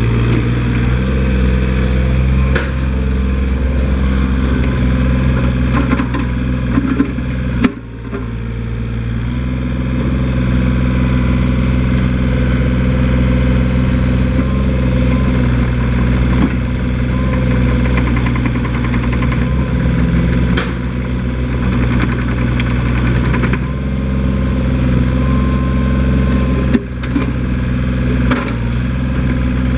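TCM TB025 backhoe's diesel engine running steadily, with two brief sudden breaks in the sound, about eight seconds in and near the end.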